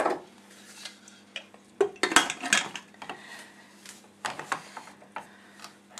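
Aluminium pressure cooker lid being put on and closed: a run of metal clanks and scrapes, the loudest about two seconds in.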